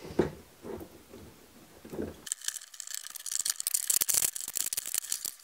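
Metal drain tool in a brass shower drain, turned with a screwdriver to tighten the drain nut: soft handling sounds, then from a little over two seconds in a quick run of rattling, scraping metal clicks.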